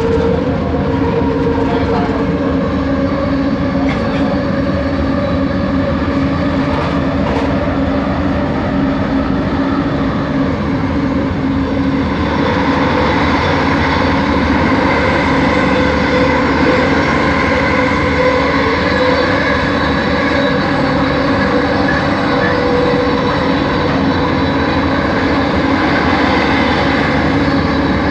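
Original Kelana Jaya Line train heard from inside the car while running, its traction motors giving a steady whine of several held tones over the rolling noise. About twelve seconds in the higher tones grow stronger and the sound gets a little louder.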